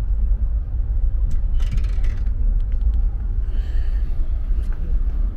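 Steady low rumble of a Green Line Express passenger carriage running along the track, heard from inside the car, with a short clatter about two seconds in.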